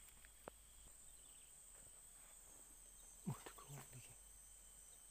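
Near silence: faint rural ambience with a steady high-pitched insect drone, a single click about half a second in, and a few faint low sounds a little after three seconds.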